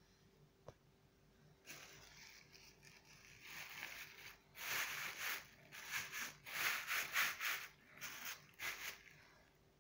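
Thin plastic bag rustling and crinkling as it is spread and tucked over a glass bowl of dough. It comes in a run of crackly bursts that grow louder about halfway through and stop shortly before the end.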